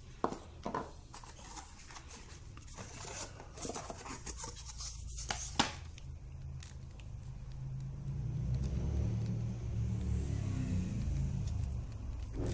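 Scattered light clicks and taps as small plastic in-ear earphone shells and their box and packaging are handled on a table. A low rumble grows in the second half.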